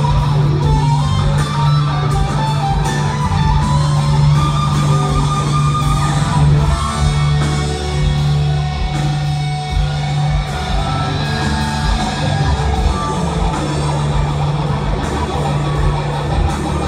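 Live rock band playing loud, led by electric guitar through a Voodoo V-Plex tube amp, with a heavy sustained bass underneath.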